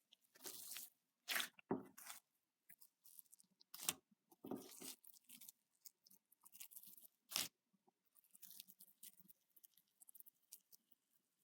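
Slime being squeezed and pressed by hand, giving irregular crackling, crunchy squishes with short pauses between them; the sharpest crackles come about a second and a half in, about four seconds in, and near seven and a half seconds.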